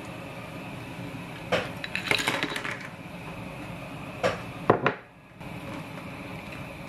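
Clam shells clattering and clinking as they are tipped into a pot of boiling broth, about two seconds in, followed by a few sharp knocks of a dish against the metal pot. Steady bubbling of the boiling water underneath.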